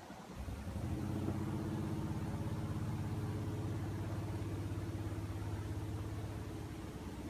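Hot air rework station's blower starting up about half a second in, then running with a steady hum, as used to melt solder balls when reballing a chip.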